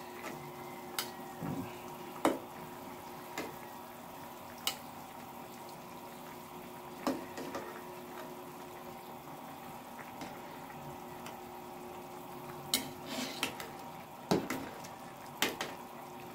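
A ladle knocking and clinking against the metal cooking pot now and then, about eight short strikes, while tomatoes are lifted out of simmering broth. A faint steady hum runs underneath.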